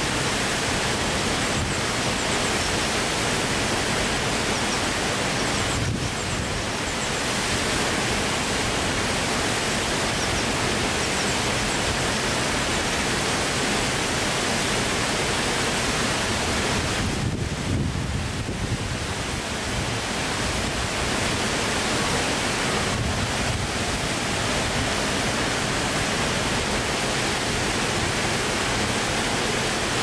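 Steady rush of a wide waterfall pouring over a rock ledge into a pool.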